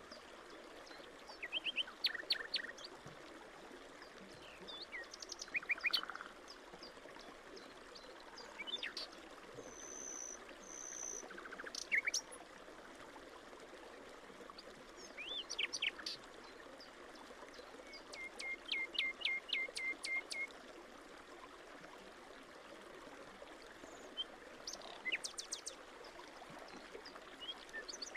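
Small birds chirping and calling at intervals, one giving a quick run of about seven evenly spaced notes about two thirds of the way through, over the steady trickle of shallow water running across soil and leaves.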